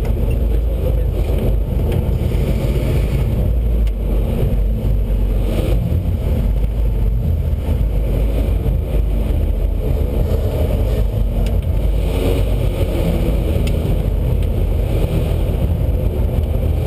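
Lotus Exige Cup 260's supercharged four-cylinder engine running steadily at low revs, heard from inside the cabin, with no revving.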